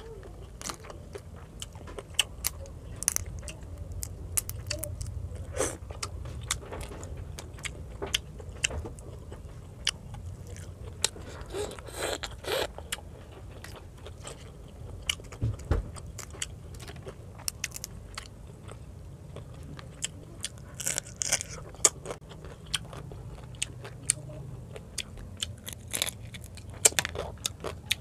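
Close-miked eating by hand: chewing and crunching of fried fish and rice, with many short irregular crunches and mouth clicks, thicker in a few bursts.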